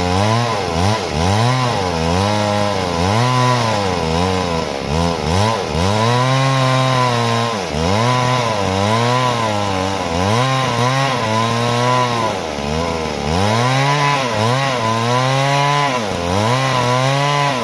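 Stihl MS 382 two-stroke chainsaw cutting wood. Its engine pitch sags under load and climbs again over and over as the chain bites and frees.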